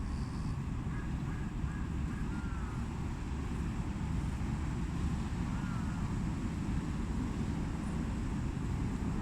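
Steady low outdoor rumble, with a couple of faint short animal calls about two and a half and six seconds in.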